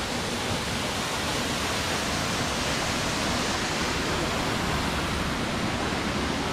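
Steady rush of a waterfall pouring into a rock pool.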